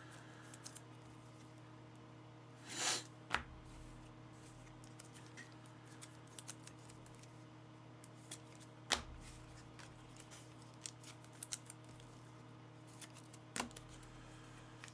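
Hands handling trading cards and their packaging at a table: a short rustling sweep about three seconds in, then scattered sharp clicks and taps, over a steady low hum.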